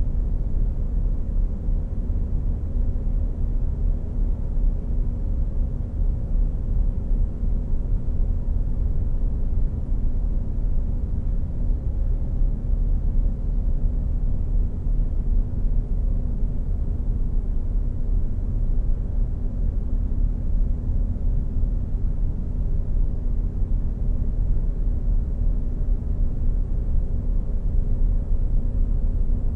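Steady deep rumble with a faint low hum running through it, unchanging throughout.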